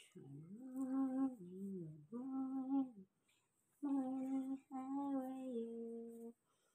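A woman humming a slow, lullaby-like tune in four phrases of held notes, with a short pause midway; the last phrase settles on one long steady note.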